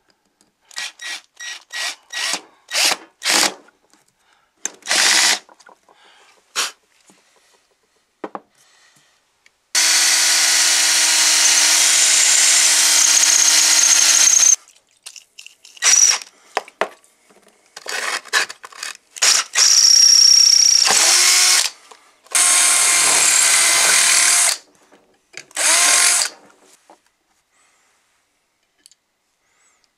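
Cordless drill-driver run in a string of short trigger bursts while driving screws, then a steady run of about five seconds drilling a hole with a twist bit, followed by more short bursts that end a few seconds before the close.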